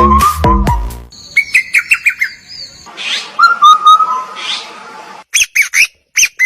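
Electronic dance music cuts off about a second in, followed by a bird chirping and whistling in short sliding notes with pauses, ending in a quick cluster of sharp calls.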